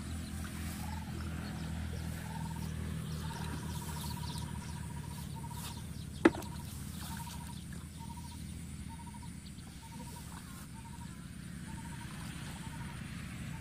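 Rural outdoor ambience over a steady low hum: an animal gives a short call roughly every half second, and a single sharp click sounds about six seconds in.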